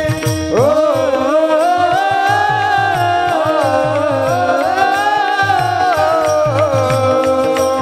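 A chorus of men singing a devotional kirtan melody in unison, entering about half a second in and easing off near the end, over a steady held drone. Small brass hand cymbals (taal) and a drum keep a steady beat of several strokes a second.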